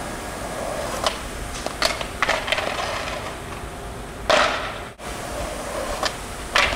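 Skateboard on street pavement: wheels rolling with a scatter of sharp clicks and knocks. There is a loud board impact about four seconds in, and another near the end as a flip trick is popped and landed.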